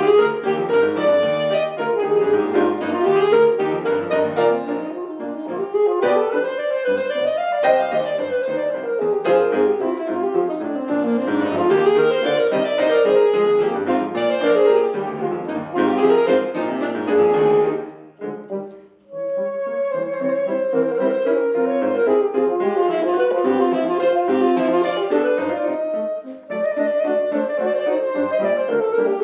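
Alto saxophone playing fast running passages that climb and fall in pitch, accompanied by grand piano. The music drops away for about a second a little past the middle, then picks up again.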